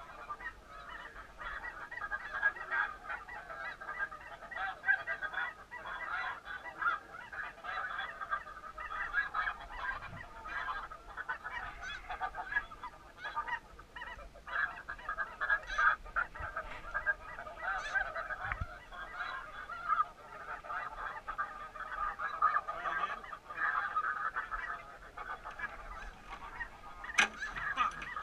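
Snow geese calling: a continuous chorus of many overlapping honks, with one sharp click near the end.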